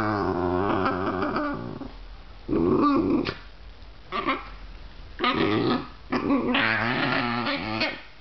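Basenjis growling while play-fighting: one long wavering growl, then several shorter growls in bouts, ending about a second before the close.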